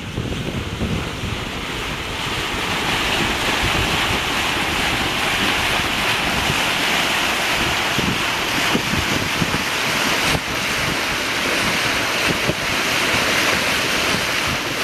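Bow wave and water rushing and hissing along the hull of a sailing yacht under way, growing louder over the first couple of seconds, with wind buffeting the microphone.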